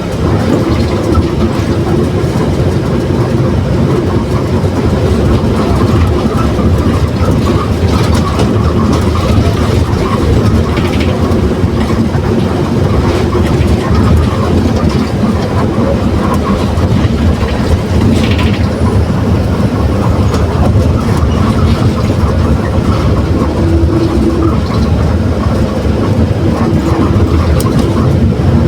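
Mercedes-Benz OF 1721 BlueTec 6 bus running under way. The engine and drivetrain give a steady, loud noise, and the rear differential growls. A humming note stands out in the first few seconds and again near the end.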